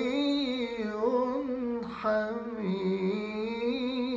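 Quran recitation by a single voice in a slow melodic style, holding and ornamenting the word "waliyyun" in one long unbroken phrase that bends up and down in pitch.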